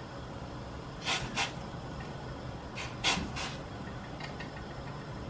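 Hot water bubbling steadily in a stainless steel saucepan, with several short splashes as whole tomatoes are dropped in to blanch, in pairs about a second in, around three seconds in and near the end.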